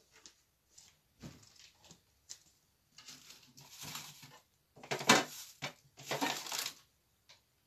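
Rummaging in a small refrigerator: rustling and knocking as things inside are moved about, in several short bursts, the loudest about five seconds in.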